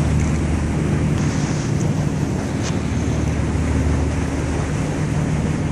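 Tour boat's engine running at a steady low drone while under way, with wind buffeting the microphone and water rushing past the hull.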